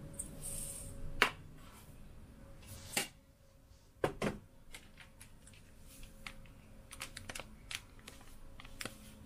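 Light clicks and knocks from kitchen things being handled: a few sharp separate clicks in the first half, then a quick run of lighter ticks near the end.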